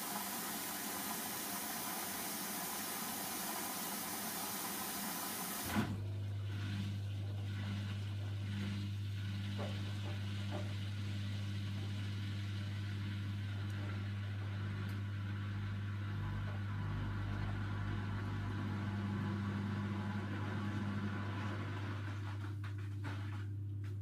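Hoover Dynamic front-loading washing machine: water filling with a steady hiss that cuts off with a click about six seconds in, then the drum motor hums steadily as the wet laundry tumbles.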